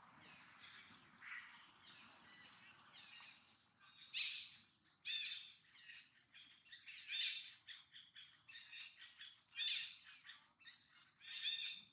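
A series of short, high-pitched animal calls, starting about four seconds in and repeating roughly once a second.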